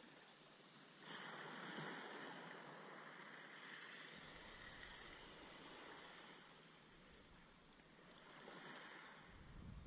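Faint wash of small sea waves lapping against the shore and groyne posts. It swells about a second in and eases briefly later on.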